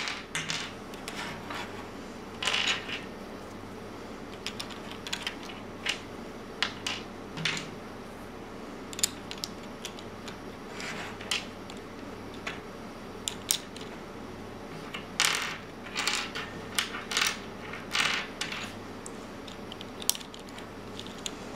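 Small plastic pieces of a David's Gear Cube puzzle clicking and clattering as they are handled and pushed into place: scattered sharp taps and clicks, with a busier run of them in the second half.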